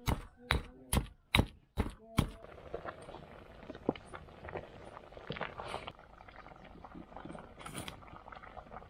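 Heavy stone pestle pounding in a stone mortar, six sharp strokes a little under half a second apart, stopping about two seconds in. After that come quieter light clicks and clatter of cooking.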